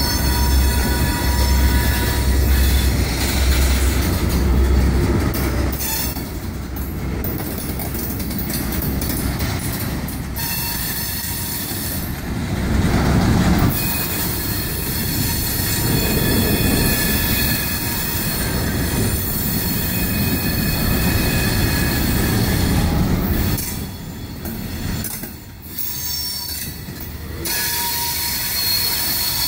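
Freight train of tank cars rolling past close by: a steady rumble of steel wheels on the rails with a thin, high squeal from the wheels. The sound dips briefly near the end.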